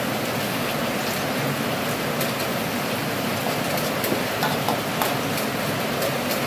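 A wok of asam pedas fish broth heating on the stove, not yet at the boil, with a steady rushing noise and a few light taps of a metal spatula against the aluminium wok as the fish is moved about.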